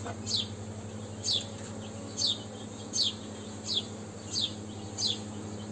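A bird repeating a short, high, falling chirp, seven times at an even pace of a little more than one a second, over the steady low hum of honeybees around an open hive.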